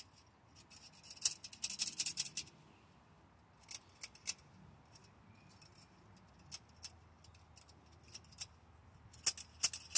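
Socket ratchet clicking in two quick runs, one about a second in and one near the end, with a few single metallic clicks between.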